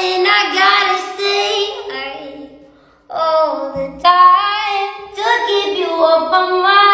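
A female voice singing solo in held, bending notes, in short phrases, fading out about three seconds in before a new phrase starts.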